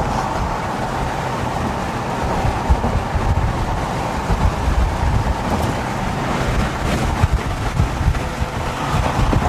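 Car on the move: steady engine and road rumble, with wind buffeting the microphone in uneven gusts.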